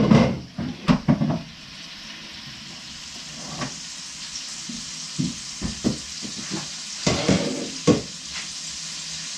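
Meat frying in a pan with a steady sizzling hiss. Sharp knocks and clatter of things being set down on the kitchen counter come in the first second and a half and again from about five to eight seconds in.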